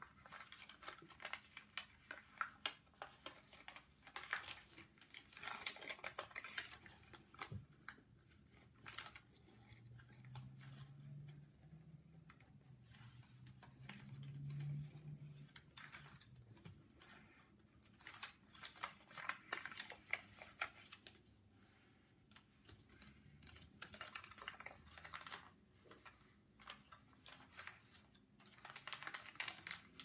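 Origami paper that was already folded into an earlier model being handled and creased by fingers on a wooden tabletop: scattered crisp crackles, clicks and rustles of folding, close up. A faint low hum comes in for a few seconds in the middle.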